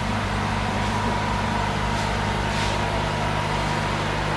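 Electric hair clippers running steadily, a constant motor hum with a thin high whine above it.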